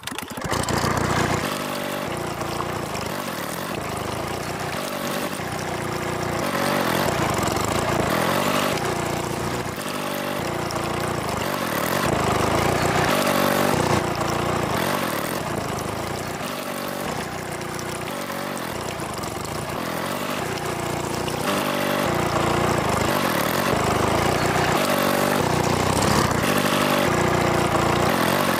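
Miniature model diesel-engine water pump running steadily, with water gushing from its outlet pipe.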